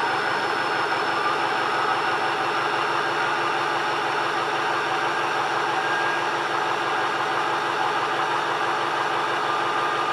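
Stock Ford 6.0L Powerstroke V8 turbodiesel idling steadily, with the steady high whistle of its Garrett variable-geometry turbocharger over the engine.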